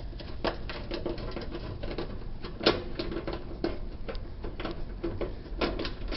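Quarter-inch nut driver turned by hand, backing screws out of a washer's panel: a run of irregular light metal clicks and scrapes, several a second.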